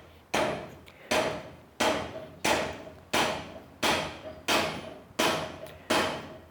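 Rubber hammer striking a piece of pipe used as a driver, about nine even blows at just under one and a half a second, each with a short ringing tone from the pipe. The blows are driving a tight-fitting wheel-bearing adapter on, and it has not yet seated.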